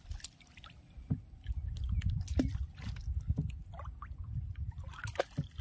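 A small boat on a river while a cast net is handled from it: a low rumble of water and wind, quiet at first and louder from about a second in, with scattered light knocks and clicks.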